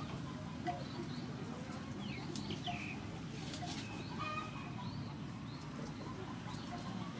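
Chickens clucking and small birds chirping, over a steady low background rumble. A cleaver scrapes faintly a few times as it scoops pulp from a halved Feroniella lucida fruit.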